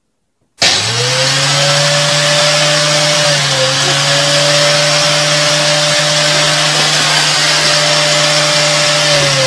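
A loud electric motor running steadily with a strong hiss, starting abruptly about half a second in. Its hum drops in pitch near the end.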